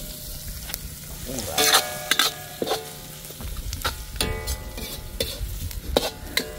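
Meat sizzling as it fries in a pan while it is stirred. Several sharp clinks of a metal utensil against the pan stand out above the sizzle.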